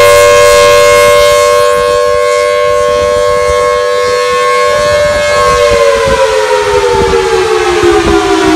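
Federal Signal Thunderbolt 1000BT outdoor warning siren sounding a steady, loud two-tone chord. About two-thirds of the way through, both tones start falling in pitch together as the siren winds down.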